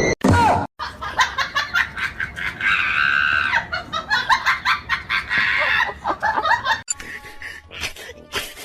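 People laughing in quick bursts over background music.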